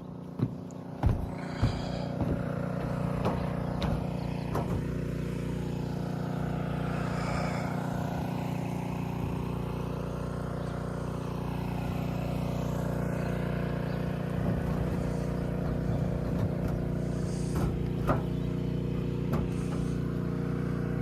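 A few sharp knocks in the first two seconds, then a steady engine drone that holds an even pitch throughout.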